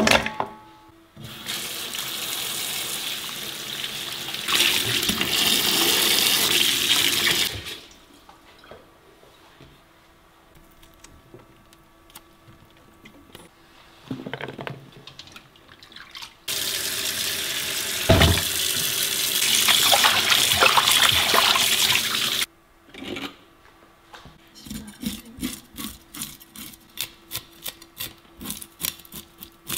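Kitchen tap running hard into a stainless steel bowl of vegetables being rinsed, in two spells of about six seconds each with quieter handling between. Near the end comes a rapid run of short scrapes, about three to four a second, as a fish is scaled.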